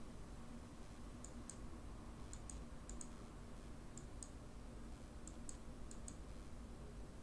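Faint, sharp clicks, mostly in quick pairs, about six pairs spread over the pause, over a low, steady room hum.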